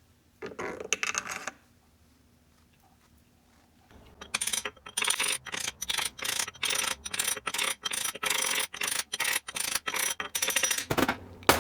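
A quick run of sharp metallic clicks and taps, about three or four a second for several seconds, from metal transmission parts being handled and worked. A short scraping rustle comes about half a second in.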